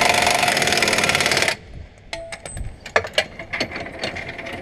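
Air impact wrench hammering as it runs bolts in on a combine axle mount, cutting off about a second and a half in. Scattered metallic clicks and clinks follow.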